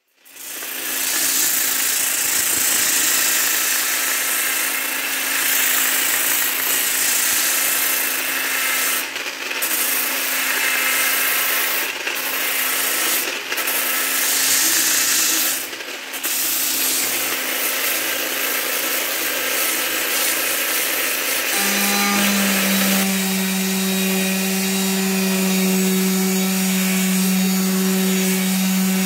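Electric sanders running against wood. A round-pad power sander runs steadily with a few brief breaks. About 22 seconds in the sound changes to the lower, steadier hum of a rectangular-pad orbital sheet sander.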